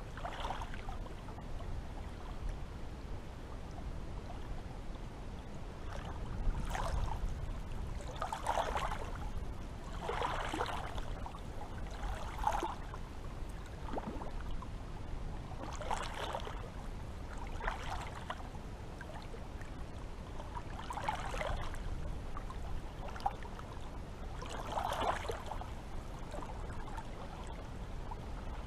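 Sea water lapping and splashing in repeated washes every two seconds or so, over a low steady rumble.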